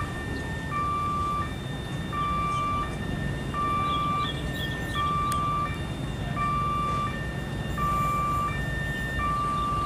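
Level-crossing warning alarm sounding a steady two-tone electronic signal, alternating high and low about every 0.7 seconds, as a train approaches. Under it runs the low rumble of the oncoming train.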